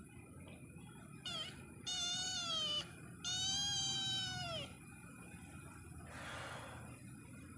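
Young tabby kitten meowing three times: a short first call, then two longer high-pitched mews, the last the longest and loudest, each dropping in pitch at its end.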